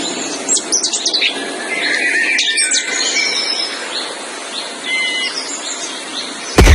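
Many short bird-like chirps and tweets over a steady hiss. A sudden loud low boom comes in right at the end.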